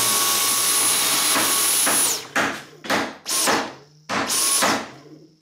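Dyson V10 Absolute cordless stick vacuum running with a high whine, cutting out about two seconds in as the trigger is let go, then starting again in several short bursts as the trigger is pressed and released. The motor only runs while the trigger is held.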